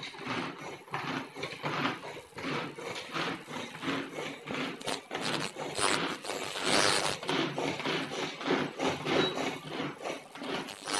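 Pull-cord hand chopper being yanked over and over, its cord zipping out and in as the blades spin through onions, in a steady rhythm of a few strokes a second.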